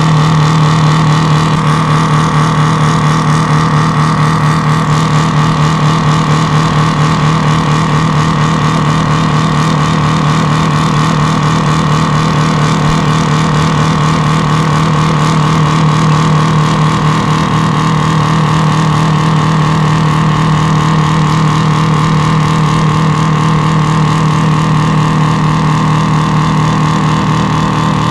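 The 1974 White Road Boss truck's 8V71 two-stroke Detroit Diesel V8 runs loud and steady at a constant pitch. It is driving the rear tyres, which spin in a smoking burnout.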